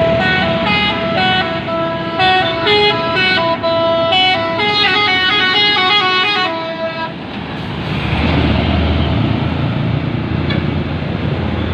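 Telolet horn on a Hino truck playing a fast melody of short, stepped multi-tone honks for about seven seconds. The horn then stops and engine and road noise swell up.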